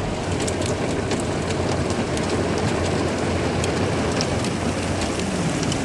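Heavy rain falling steadily, an even hiss with scattered drops ticking.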